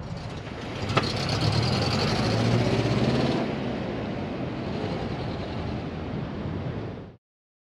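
A motor vehicle running: steady engine hum with road noise and a single click about a second in, cutting off suddenly near the end.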